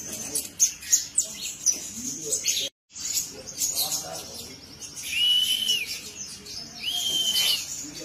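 Caged sunbird (kolibri ninja) chirping in rapid, thin, high notes, then giving two short arched whistles about two seconds apart in the second half. The sound cuts out briefly about three seconds in.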